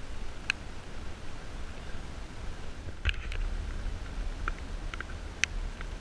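Light rain outdoors: a steady low wind rumble on the microphone with scattered sharp ticks of drops, about eight in all, the loudest a little past three seconds in and again near the end.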